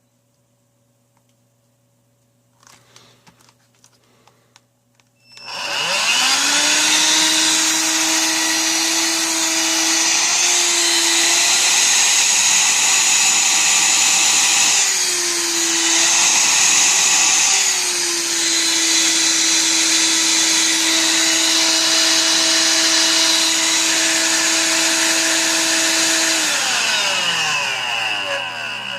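Electrolux ZB3010 18V cordless stick vacuum running on its rebuilt lithium battery pack: after a few faint clicks, the motor switches on about five seconds in and spins up to a steady high whine, its pitch wavering twice in the middle. Near the end it is switched off and winds down with falling pitch.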